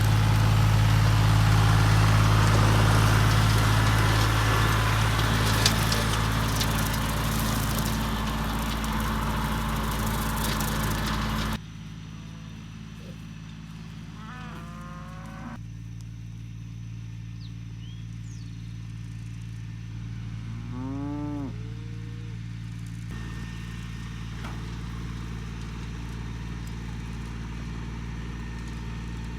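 An engine running steadily for about the first third, then cutting off abruptly. Cows mooing in the quieter stretch after it, two long calls a few seconds apart and a third beginning at the end.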